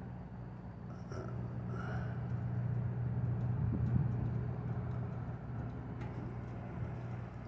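Steady low hum of a vehicle engine and road traffic, swelling about four seconds in and easing off again.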